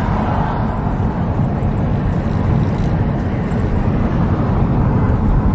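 Steady low rumble of a car driving along a highway, heard from inside the cabin: tyre, engine and wind noise.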